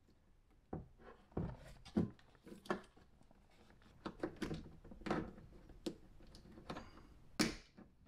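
Scattered clicks, light knocks and rustling of hands working the plastic door handle assembly and its wiring connector inside a Tesla Model S rear door, as the handle's cable is plugged in. A sharper click comes near the end.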